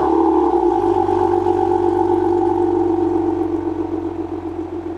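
Maserati Quattroporte engine idling steadily through its stock sport exhaust with the exhaust valves closed, growing slightly quieter over the few seconds.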